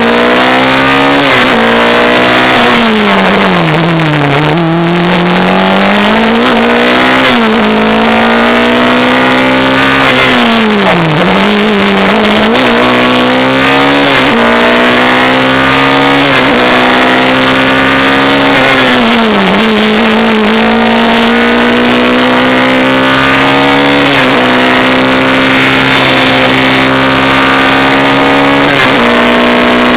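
Volkswagen-engined Dallara 392 Formula 3 car's four-cylinder racing engine running hard under load. The engine pitch drops steeply three times, about four, eleven and nineteen seconds in, and climbs back each time, with smaller quick steps in pitch from gear changes.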